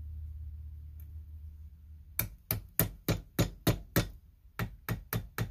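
Claw hammer tapping a steel pin punch to drive a stuck pin out of a Kohler Courage engine's carburetor held in a vise: sharp metallic taps about three a second, seven in a row starting about two seconds in, a short pause, then more taps.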